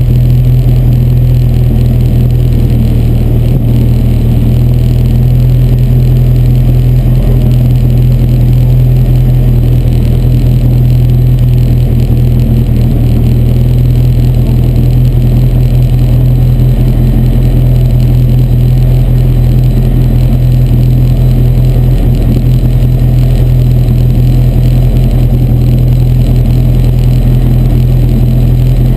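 Car engine idling steadily, a constant low hum with no revving, heard from inside a stripped race car's cabin.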